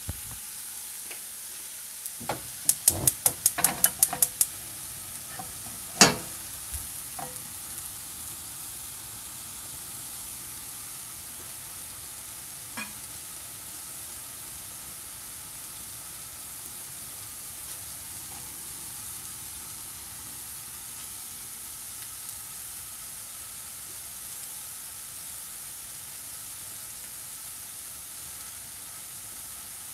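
Amanita villosa mushroom pieces dry-frying in a nonstick pan with a steady, light sizzle. A quick run of sharp clicks comes a few seconds in, followed by a single loud knock.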